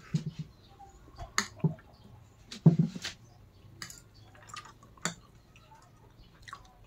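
Metal fork and spoon clicking and scraping against a plate as noodles are twirled, with wet eating sounds between. The clicks come at irregular moments, and a cluster about three seconds in is the loudest.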